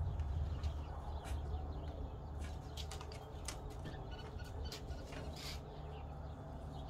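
Pencil tapping and scratching on a sheet of hardboard while the board is handled, giving scattered light clicks and a short scratch about five and a half seconds in, over a steady low rumble.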